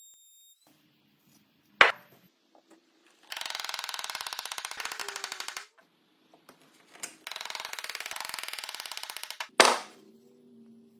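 Hand work at a woodworking bench: a sharp knock, then two runs of fast, even clicking or rattling, each about two seconds long. A further knock comes between the runs, and the loudest knock comes near the end.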